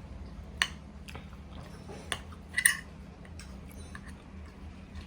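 Cutlery clinking against a plate during a meal: a sharp clink about half a second in, another at about two seconds and a quick pair just after two and a half seconds, with quiet eating sounds between, over a steady low hum.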